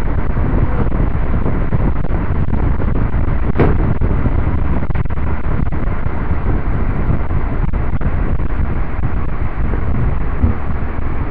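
Loud, steady low rumbling noise, with one brief knock about three and a half seconds in.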